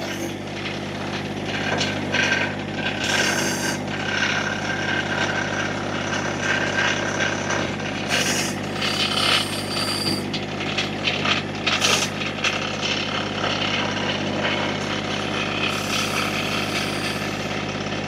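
Massey Ferguson GC1725 compact tractor's diesel engine running steadily while its backhoe digs. The bucket scrapes through soil and gravel in several short rasping bursts.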